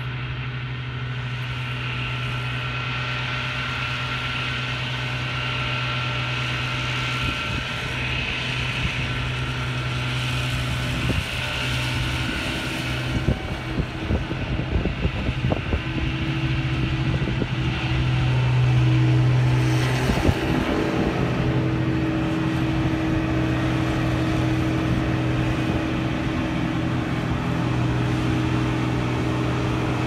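Challenger self-propelled windrower's diesel engine running steadily under mowing load, a constant low hum that grows louder in the second half as the machine comes closer. A scatter of short knocks sounds in the middle.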